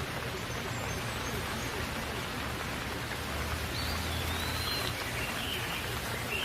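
Steady rainfall, an even hiss of falling rain. Birdlike chirps join in from about four seconds in.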